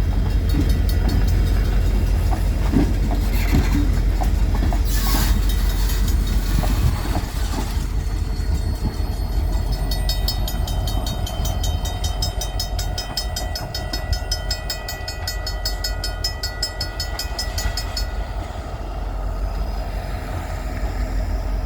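Train rolling past with a steady low rumble of wheels on the rails. A short noisy screech comes about five seconds in, and a rapid, regular high-pitched ringing runs for about eight seconds in the second half.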